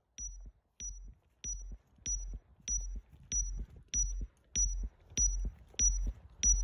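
Falconry telemetry receiver beeping: short electronic pulses about one and a half times a second, each a high tone with a low thump, getting steadily louder. The pulses are the receiver picking up the transmitter on the flying falcon, the same kit that calls out the bird's height.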